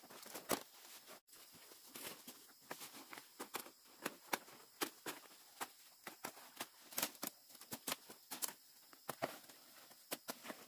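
Large broad leaves rustling and crackling as their stalks are gripped and cut with a knife, an irregular run of sharp snaps and crinkles several times a second.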